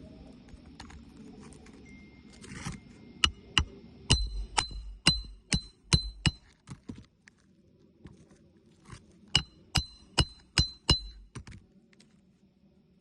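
Hammer driving roofing nails into asphalt shingles: two runs of ringing metal strikes, about two a second, with a pause between them.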